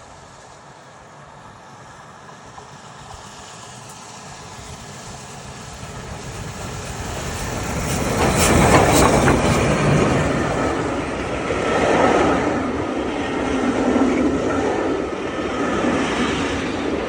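Steam-hauled train approaching and passing close by, growing steadily louder for about eight seconds and then staying loud, with swells about every two seconds as the carriages run over the rails.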